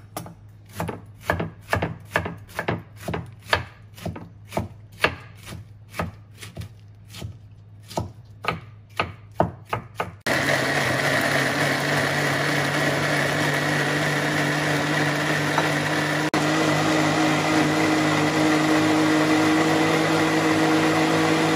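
A cleaver chopping pineapple on a wooden chopping board, a quick run of knocks at about two to three a second. About ten seconds in, this gives way to a Philips 600 W countertop blender running steadily with a constant motor hum and whine.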